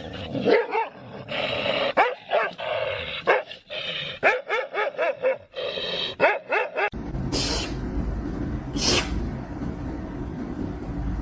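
A dog barking and yipping in a rapid string of short, pitched calls. About seven seconds in, this gives way to a steady low rumble broken by a few brief hissing swishes.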